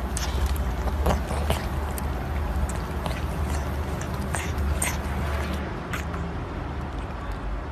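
Kitten lapping milk from a bowl: a run of small, irregular wet clicks of the tongue, over a low steady hum.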